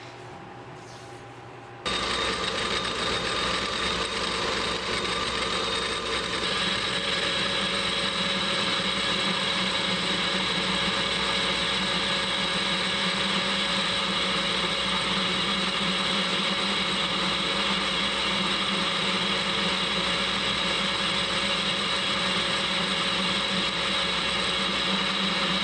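Metal lathe running steadily, turning down the outside of a round workpiece. It comes in abruptly about two seconds in as a steady hum with a high whine, and the whine grows stronger about six seconds in.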